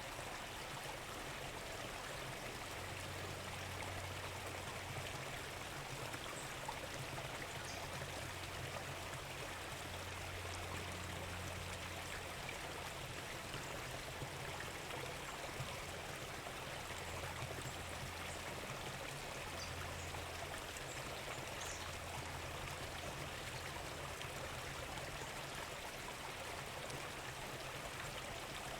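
Steady rushing noise like a flowing stream, with a low wavering hum underneath and no drum beats.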